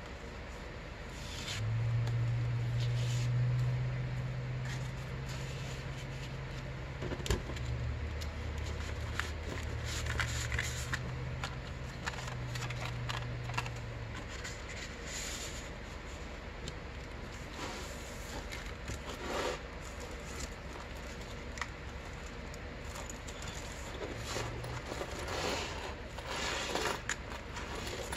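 Paper and card rustling and scraping as a handmade junk journal's pages, pockets and tucked ephemera are handled, with scattered small crinkles and clicks. A low steady hum runs underneath for the first half and stops about fourteen seconds in.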